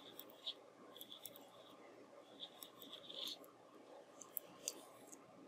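Faint clicking and scratching of double-pointed knitting needles and wool yarn as stitches are knitted, with a few light, irregular ticks.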